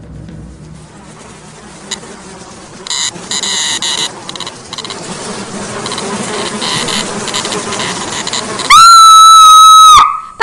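A giant insect's wings buzzing, growing steadily louder as it comes closer, with stronger bursts of buzz about three seconds in. Near the end, a loud, high, steady scream holds for over a second and then cuts off sharply.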